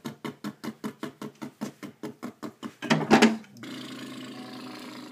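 A person imitating an excavator engine with the mouth: a rapid putter of about seven beats a second, then a louder burst about three seconds in, followed by a steady buzzing drone that cuts off suddenly.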